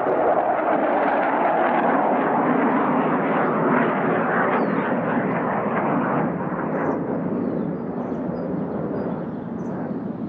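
An aircraft passing overhead: a loud rushing noise whose pitch drops over the first few seconds, then fading away towards the end.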